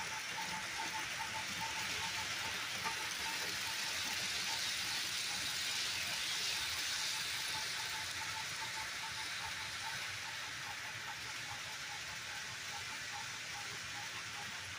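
HO scale Bachmann model train running on the layout: a steady hiss of wheels rolling on the rails and the motor, a little louder near the middle, with a faint regular ticking.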